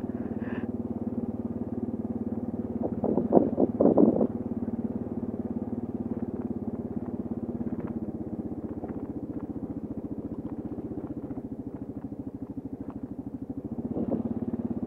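Kawasaki KLR 650's single-cylinder four-stroke engine running steadily while riding, with a brief louder burst about three seconds in.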